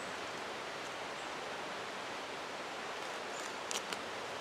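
Steady rushing of a rain-swollen mountain creek running high, with a couple of small clicks near the end.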